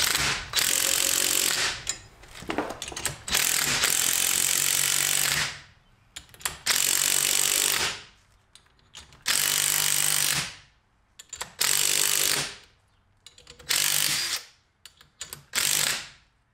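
Impact wrench with a 19 mm socket hammering in about seven bursts with short pauses between them, the later bursts shorter. It is driving down the threaded rods of a coil-spring compressor, alternating between the two sides to compress the spring on a strut.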